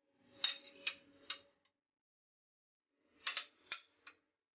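Light clinks and taps as white spoons are set down on saucers beside glass dessert bowls: three quick taps about half a second in, then another three or four a little after three seconds.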